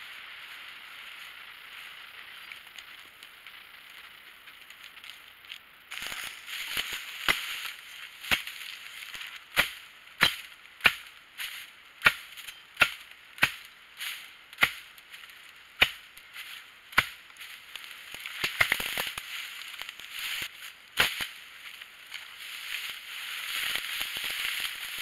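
Machete chopping at the base of a small pine sapling: a dozen or so sharp strikes, about one to two a second, starting about six seconds in and ending about four seconds before the end. Before and after the chopping, footsteps and rustling through dry grass and brush.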